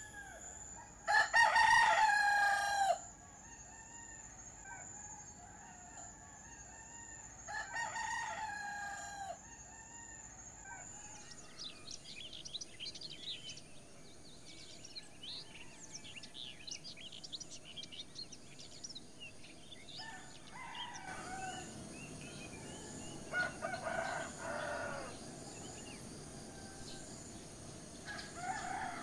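A rooster crowing, loudest once about a second in and fainter again around eight seconds, with more crows later on. Small birds chirp from about eleven seconds, over a steady high insect drone.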